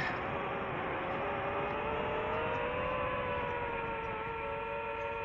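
DJI FPV drone's motors and propellers whining steadily in cruise, several pitched tones together that drift slightly up about halfway through and ease back down with the throttle.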